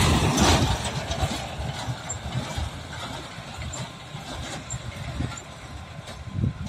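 Small truck's engine and tyres going by close, loudest in the first second, then its engine rumble fading as it drives away.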